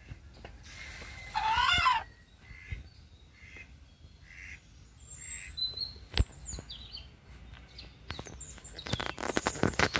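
A hen gives one loud, wavering squawk about a second and a half in, followed by a string of soft short clucks. Small wild birds chirp faintly in the middle, and a burst of scuffling noise comes near the end.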